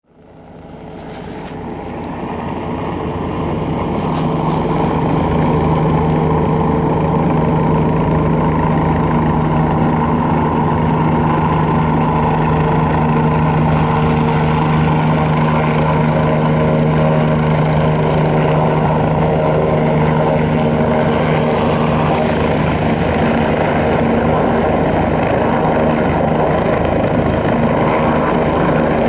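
Bell 429 GlobeRanger helicopter taxiing close by: the steady whine of its twin turboshaft engines over an even main-rotor beat. It rises from silence over the first few seconds, then holds steady.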